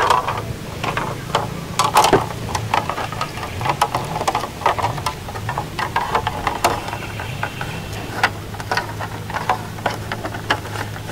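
Irregular clicks, taps and rustles of hands working small crafting materials, over a steady low hum.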